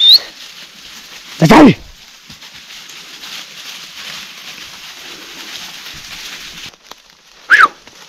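A dog yelping twice: a longer yelp falling in pitch about a second and a half in, and a shorter one near the end. Both sound over a steady hiss, with a brief rising bird chirp right at the start.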